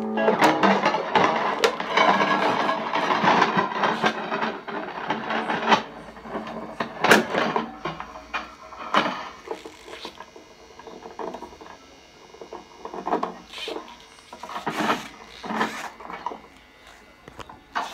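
Handling noise of a folding electric guitar being folded up: a dense clatter of clicks, scrapes and knocks from the strings and hinged neck for the first several seconds, then sparser separate knocks and rubs.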